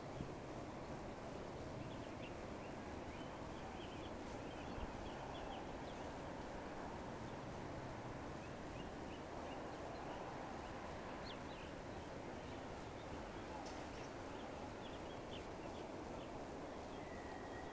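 Outdoor ambience: a steady low background hum with faint, scattered short bird chirps through most of it, and a brief steady whistle-like tone near the end.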